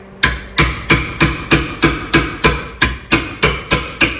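Hammer tapping a wrench in a quick, even rhythm, about three strikes a second, each with a short metallic ring, to make sure the nut on a rear traction arm is tight.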